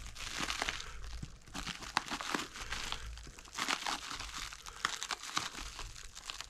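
Plastic wrap crinkling and tearing in repeated bursts as it is slit with a utility knife and pulled away by hand.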